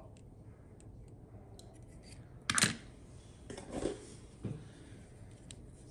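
Hot Wheels diecast toy cars being handled, with a few light clicks and rattles. The loudest comes about two and a half seconds in, and two smaller ones follow about a second and two seconds later.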